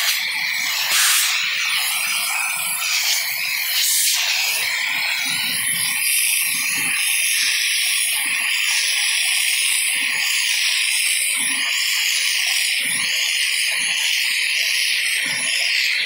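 Shark vacuum cleaner running steadily with its crevice tool attached, a high, even rushing hiss of motor and suction, with a couple of sharp knocks in the first few seconds.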